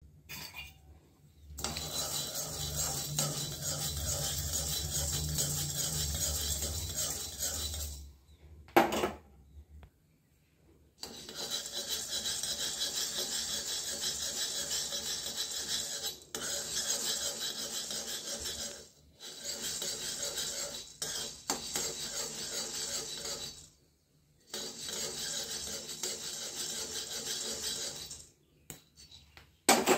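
A spoon stirring sorghum grains around a metal kadai: a steady scraping, rattling rasp of grains and spoon against the pan. It stops abruptly several times.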